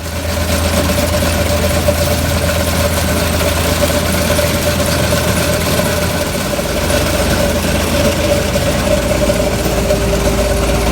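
Concrete floor milling machine running: a steady, loud machine noise with a constant whine over a low rumble, the rumble deepening about six seconds in.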